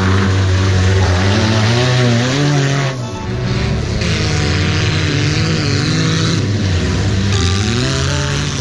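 Engines of several old wreck-race cars running and revving as they drive through mud, their pitch rising and falling. The sound changes abruptly about three seconds in and again later on.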